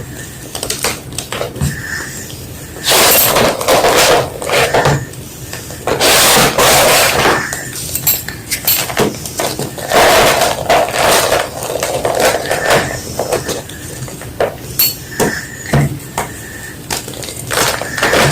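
White block of gym chalk being crushed by hand: repeated dry crunches and snaps, with three longer crumbling stretches about 3, 6 and 10 seconds in.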